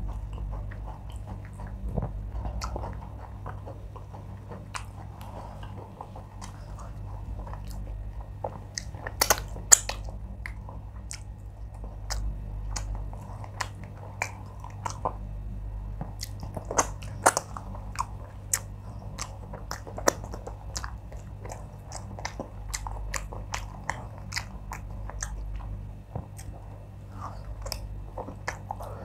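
Close-miked chewing and wet mouth smacks of a person eating wheat fufu and oha soup with fish by hand, with sharp clicks scattered throughout, the loudest about nine seconds in.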